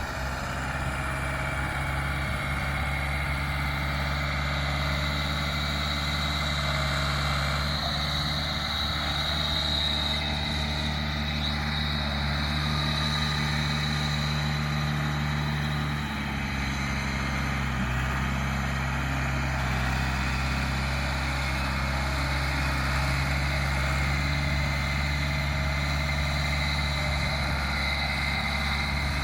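Heavy diesel engine of a backhoe running steadily, with a steady high whine above it.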